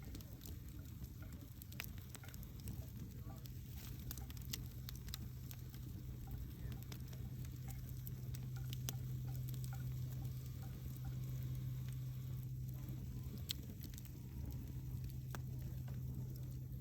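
Wood fire crackling, with scattered sharp pops over a soft hiss and a steady low hum.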